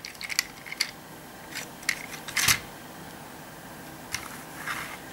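Small clicks and taps of a plastic transforming toy figure being handled and set down on a cloth, with a louder brief rustle about two and a half seconds in.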